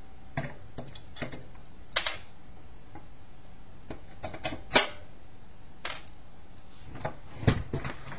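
Scattered sharp clicks and light knocks of metal pliers and small screws against a satellite receiver's metal chassis and circuit board as the screws are pulled out. The loudest knock comes about halfway through.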